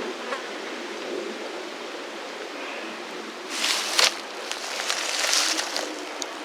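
Outdoor field recording with the steady rush of a stream. About three and a half seconds in comes a loud burst of noise with a sharp crack near four seconds, followed by further uneven bursts of rustling noise for about two seconds.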